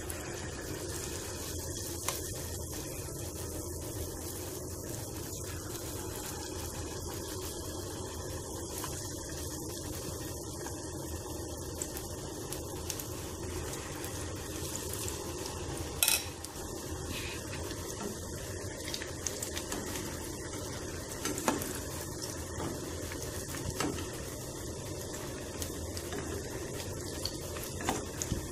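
Gram-flour (besan) pakora batter deep-frying in hot oil on low heat: a steady sizzle, with a few sharp clinks of a metal spoon against the pan, the loudest about halfway through.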